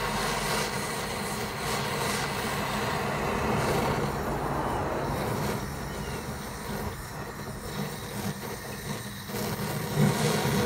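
Handheld torch lighter's jet flame hissing steadily as it lights applewood pellets in a perforated smoker tube. The hiss thins out a little past halfway.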